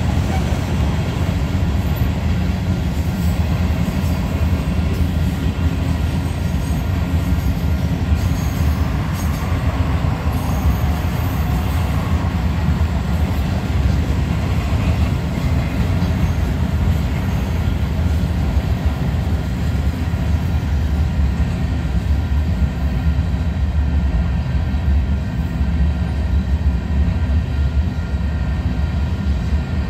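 Freight train cars rolling past at steady speed: a continuous low rumble of steel wheels on the rails.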